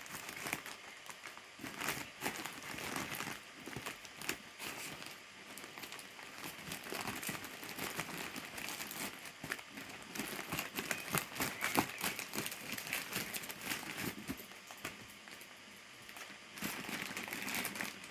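Packaging crinkling and rustling as it is handled and opened, with dense irregular crackles.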